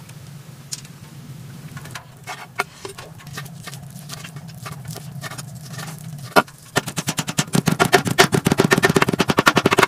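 Kitchen knife cutting raw pork on an end-grain wooden cutting board. It starts with scattered single cuts, and about seven seconds in turns to rapid, even chopping as the meat is minced.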